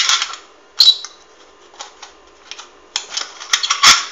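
The point of a self-drilling screw pushed through the thin aluminium of a soda can's base, punching a row of small holes: irregular sharp clicks and short scraping crackles, with the loudest cluster near the end.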